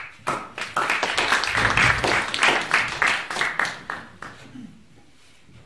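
Audience applauding, dense clapping that fades away after about four seconds.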